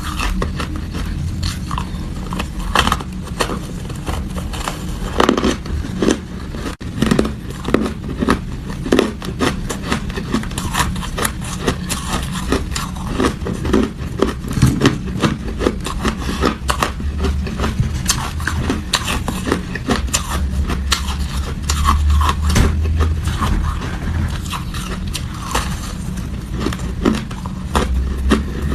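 Close-miked chewing of hard ice: irregular crunches and cracks as the ice is bitten and ground between the teeth, over a steady low hum.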